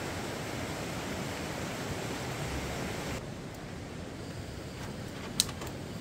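Steady rushing outdoor noise that drops suddenly to a quieter, lower hush about three seconds in. Near the end comes one sharp, ringing metallic click, the loudest sound, followed by two fainter clicks.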